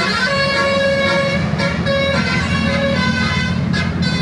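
Multi-tone telolet horn on a bus playing a tune of short notes that change every half second or so, over the steady low sound of the bus's engine running.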